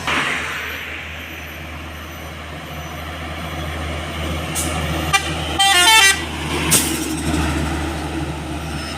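A heavy truck's engine running steadily. About five and a half seconds in, a short burst of horn notes steps quickly up and down in pitch.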